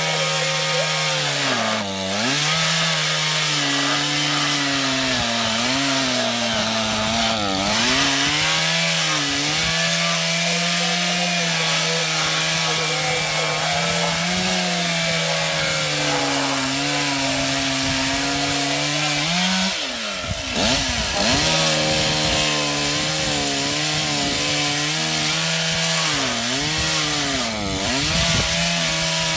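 Gas chainsaw running at full throttle and cutting wood, its engine note sagging and recovering several times as the chain bites. Around twenty seconds in the pitch drops and breaks up briefly before the saw picks up again.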